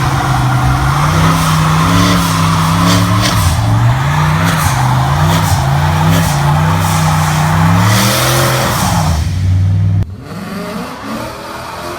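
A car engine held at high revs in a burnout, its note wavering up and down while the spinning tyres squeal against the pavement. It cuts off suddenly near the end, and a quieter engine revs up.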